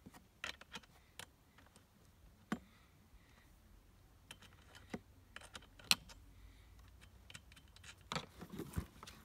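Irregular sharp clicks and small metallic taps as a T-shaped chainsaw wrench and the plastic side cover of a new petrol chainsaw are handled, while the cover is taken off its two nuts. The loudest click comes about six seconds in, with a small cluster near the end.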